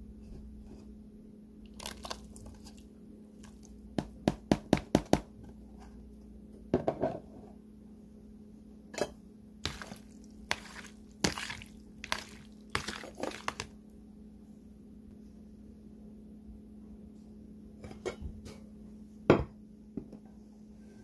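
Metal spoon clinking and knocking against a plastic container while tossing cubes of gelatin: a quick run of about six clicks around four seconds in, scattered knocks through the middle, and a single sharp, loudest knock near the end. A steady low hum runs underneath.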